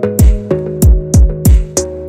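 Electronic music: deep kick drum hits that drop in pitch, about four in two seconds, over held synth chords and sharp high percussion hits.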